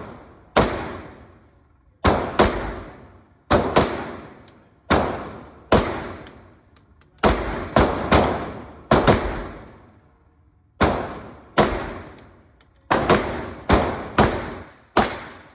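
9mm Glock 34 pistol being fired at an uneven pace, about eighteen shots with some in quick pairs, each followed by a ringing echo that dies away within about a second.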